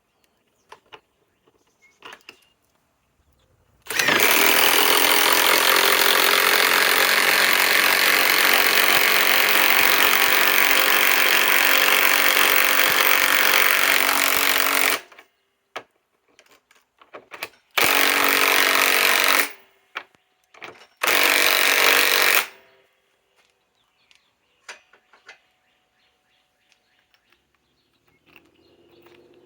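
Milwaukee M18 Fuel Gen 2 mid-torque impact wrench hammering as it drives a long lag screw into wood: one long run of about eleven seconds, then two short bursts of about a second and a half each.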